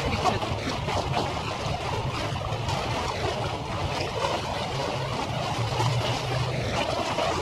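Harbour ambience sped up fivefold: a steady low ship engine hum under an even rushing hiss.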